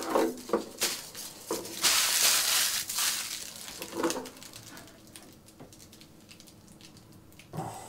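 Rustling and crackling of a thin polycarbonate RC truck body shell being handled on a desk. A long, loud rustle comes about two seconds in, followed by a few light taps and faint handling sounds.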